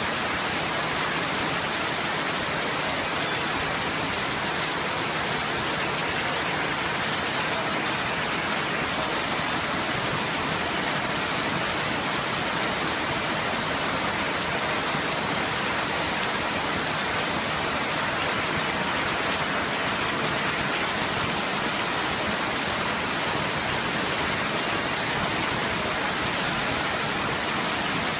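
Heavy rain falling steadily on a flooded street and standing water, a continuous even hiss with no breaks.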